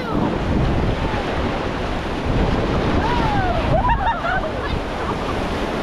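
Whitewater rushing and splashing around a raft running a Class III rapid, a loud steady churn of water. A few short yells from the rafters rise over it about three to four seconds in.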